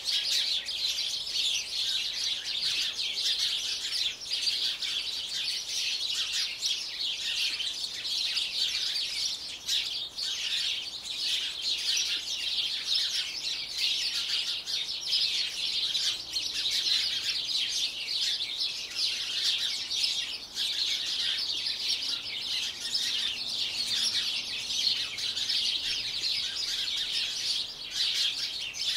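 Small birds chirping and twittering in a dense, continuous chorus, rapid high notes without a break.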